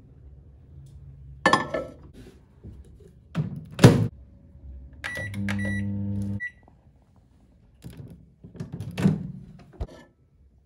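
Microwave oven in use: knocks as a ceramic bowl goes onto the glass turntable and the door is shut, the loudest a thunk about four seconds in. Key beeps follow, then the oven's electric hum runs for about a second before another beep. Near the end come more knocks as the door opens and the bowl is handled.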